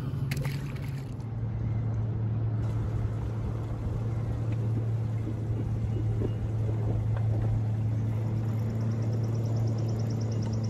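Boat motor humming steadily at a low pitch, dropping slightly in pitch about a second in. A faint, fast ticking joins near the end.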